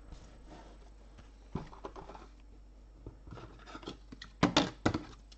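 2020 Donruss Optic football trading cards being handled by hand: soft rubbing and sliding of the card stock, with a few scattered light clicks and a quick cluster of sharper taps about four and a half seconds in.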